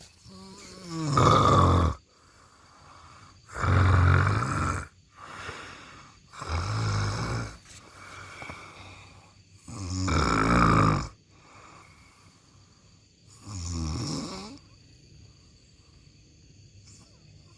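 A person snoring loudly. The snore comes about every three seconds, five times, with fainter breathing between; the last snore is weaker.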